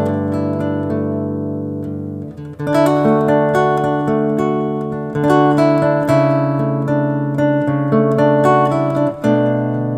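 Background music: acoustic guitar playing chords, with a short break in the strumming about two and a half seconds in and another near the end.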